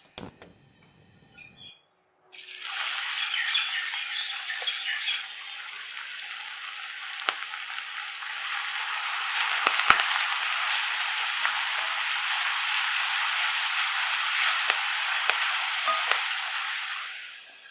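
Food sizzling in hot coconut oil in a pan, starting suddenly about two seconds in and going on steadily, with occasional sharp knocks of a spoon against the pan as it is stirred. The sizzle fades away just before the end.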